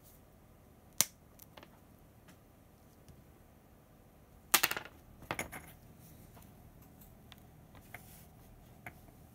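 Side cutters snipping through a webcam's cable with one sharp click about a second in. About three seconds later comes a short, louder burst of clicks and clatter, then a few faint ticks.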